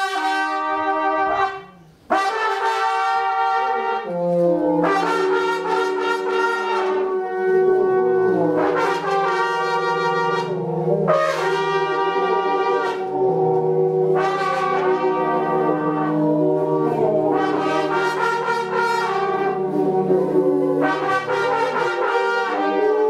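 Several brass instruments playing slow, sustained chords over a low held bass note, with a brief break about two seconds in.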